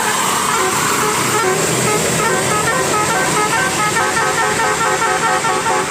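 Indonesian bus telolet horn, a basuri-type multi-tone horn, playing a quick tune of short stepped notes that begins about a second in, over steady background noise.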